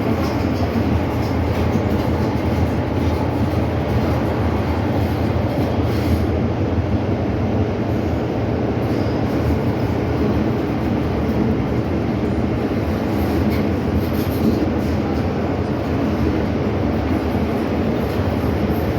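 MTR Island Line M-Train, a Metro-Cammell metro train, running steadily between stations: an even rumble of wheels on rail and running gear that neither rises nor falls, heard from on board.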